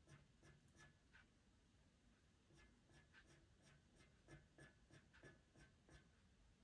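Faint scratching of a pastel pencil on pastel mat paper in short strokes. There are a few strokes at first, a pause, then a quick run of about three strokes a second.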